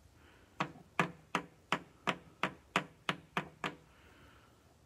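About ten light, sharp plastic taps at a steady pace of roughly three a second, from a sleeved trading card being seated in a rigid plastic top loader.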